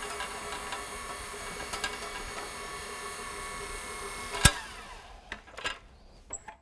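Rotary floor machine with a 100-grit sanding screen running steadily, scuff-sanding cured epoxy flush before the top coat. About four and a half seconds in a single sharp click cuts in and the machine sound stops. A few light knocks follow.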